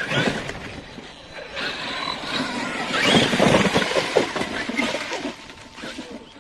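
Brushless electric RC car running in sand: motor and drivetrain whine with tyres churning, loudest about three seconds in and fading away near the end.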